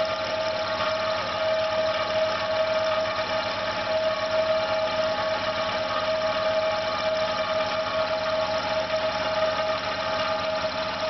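Failing electric air compressor running with a steady whine and hum, its motors labouring and slowing while the tank pressure no longer rises. The whole unit is vibrating and running hot.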